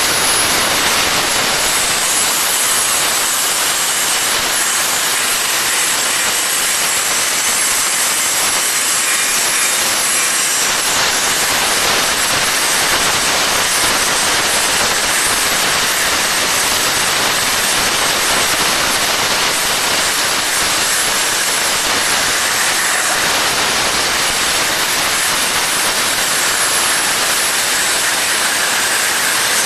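Hypertherm MaxPro200 plasma torch on a CNC table cutting 25 mm Hardox steel plate at 200 amps: the arc and gas jet blasting through the plate with a loud, steady hiss.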